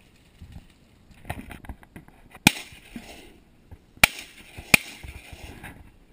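Three shotgun shots: one about two and a half seconds in, then two more in quick succession about a second and a half later, each trailing off in a short echo over the marsh.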